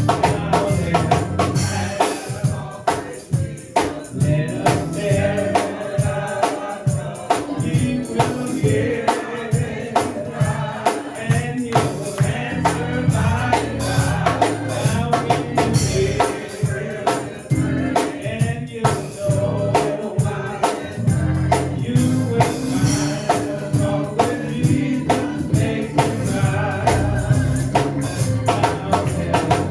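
Gospel music: a choir singing with a tambourine keeping a steady beat.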